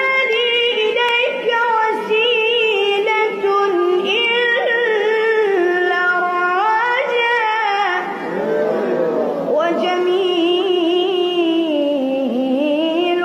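Arabic devotional song (nasheed): a high solo voice singing long, ornamented phrases with wavering, sliding pitch.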